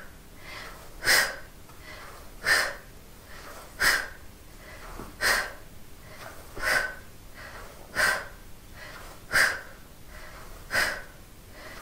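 A woman's sharp, forceful breaths under exertion during an ab exercise, one with each rep. There are eight at an even pace, about one every second and a half, with quiet between.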